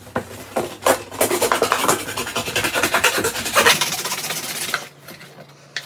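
A knife sawing back and forth through cardboard in quick rasping strokes, stopping a little before the end.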